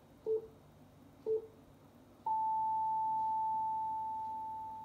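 NHK radio hourly time signal played through a vacuum-tube radio's speaker: two short, lower pips a second apart, then a long, higher pip held for about two and a half seconds and fading out, marking the top of the hour.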